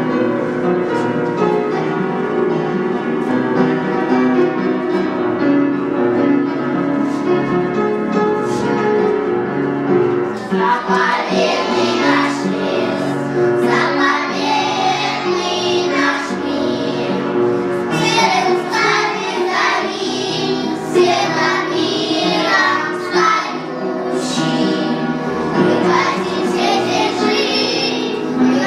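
A children's song: piano-led accompaniment that is instrumental at first, with children's voices singing from about a third of the way in.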